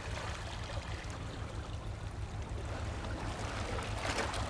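Sea water lapping and washing against the rocks over a steady low rumble, with a slightly louder wash about four seconds in.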